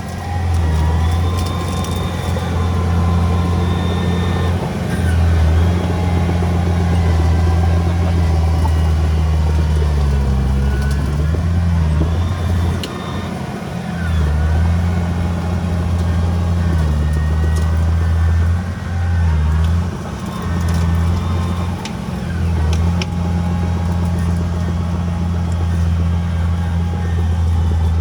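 Heavy diesel engine of earthmoving machinery running under working load. Its pitch and loudness dip and rise again several times as the load and throttle change.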